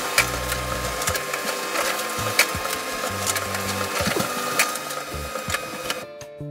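HP LaserJet Pro M118dw laser printer printing a double-sided page: a very noisy, steady mechanical whine of rollers and motor with frequent sharp clicks and clacks from the paper path. It stops abruptly about six seconds in, and background music comes in.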